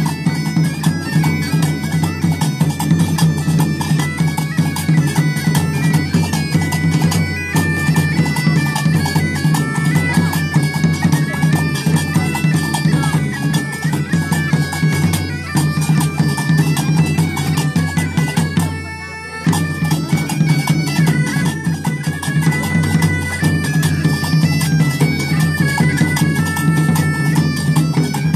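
Several bagpipes playing a lively tune over a steady drone, with a drum beating along. The playing briefly drops out for under a second about two-thirds of the way through, then resumes.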